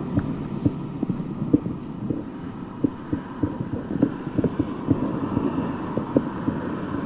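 Riding noise from a touring bicycle rolling along a paved road: many small, irregular low knocks and rattles over a steady faint hum.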